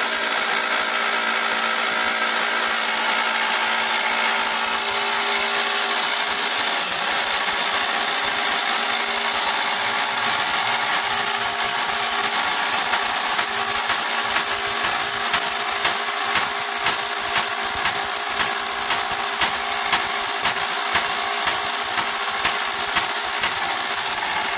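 Handheld power tool running steadily against a rusted screw in the lid of a 19th-century cast iron coffin, its motor whine mixed with a loud hiss of metal being worked.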